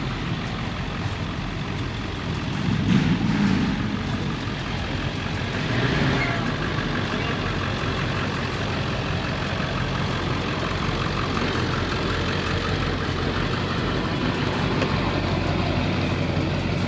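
Motor vehicle engine running steadily with a low hum, swelling louder for a moment about three seconds in.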